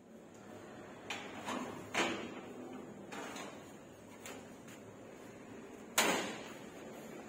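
A series of irregular knocks and clatters, about seven in all, the loudest coming about six seconds in.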